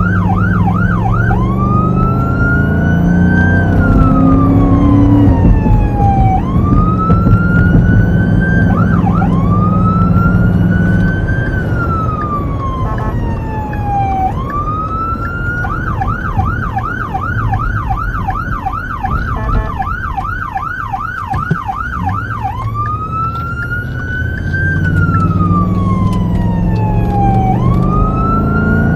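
Electronic emergency siren on a fire battalion chief's Ford F-150, heard from inside the cab while responding: a slow rise-and-fall wail that switches about halfway through to a fast yelp, a little over two sweeps a second, then back to the wail near the end. The truck's engine and road noise drone underneath.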